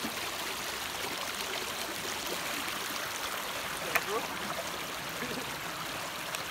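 Shallow stream running over rocks: a steady rush and babble of water. A brief click about four seconds in.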